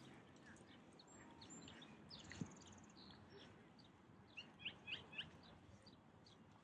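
Faint chirps and twitters of small birds, with a run of three quick, brighter chirps about two-thirds through. A single short knock about a third of the way in.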